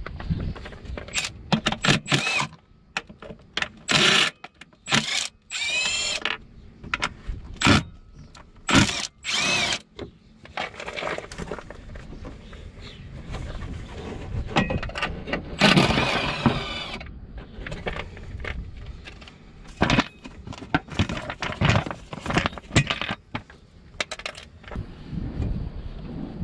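Hand tools clinking and knocking against the car's metal parts as work goes on at the crankshaft pulley and accessory belt, in scattered sharp clicks with a few brief squeaks.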